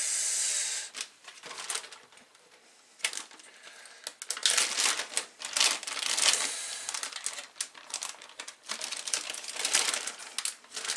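Clear plastic zip-top storage bag crinkling and rustling as hands work it open and pull it off a wet mullet roe sac. The crinkling comes in irregular bursts, with a quieter pause about two seconds in.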